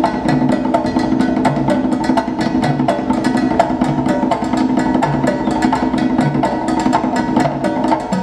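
Instrumental music with fast, even percussion ticks and a plucked-string part over held notes; the music changes near the end.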